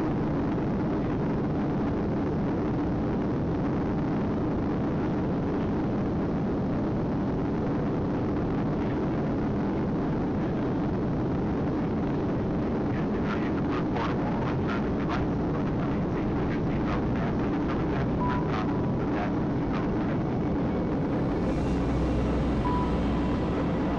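Steady cabin noise inside a Boeing 737-700 climbing after takeoff: the CFM56 turbofan engines and the rushing airflow, as heard from a window seat. A scatter of light clicks comes through in the middle.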